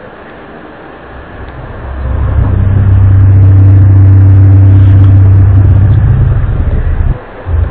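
A loud, low, steady drone with a deep rumble beneath it, swelling up about two seconds in and dropping out briefly near the end. It is one of the unexplained 'strange sounds' recordings circulated worldwide in early 2012.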